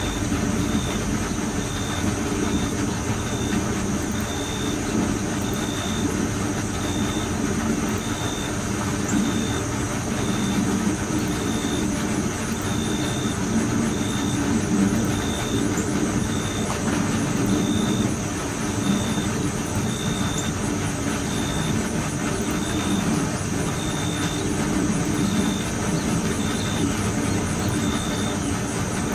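A steady low rumble of running machinery, unchanging throughout, with a high short chirp repeating about once a second over it.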